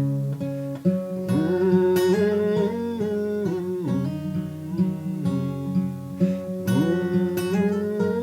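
Acoustic guitar playing the song's instrumental riff after the last chorus, plucked notes with some that slide up in pitch.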